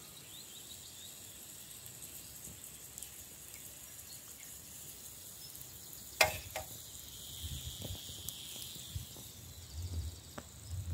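Steady sizzle and hiss from a miniature cast iron pot of chopped onion on a small wood fire, with a sharp tap about six seconds in and a few small knocks after it.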